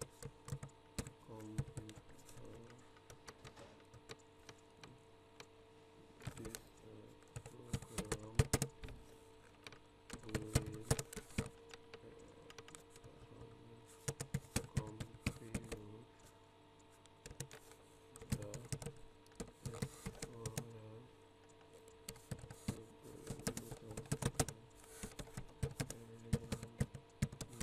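Computer keyboard typing in bursts of rapid keystrokes with short pauses between, over a faint steady hum.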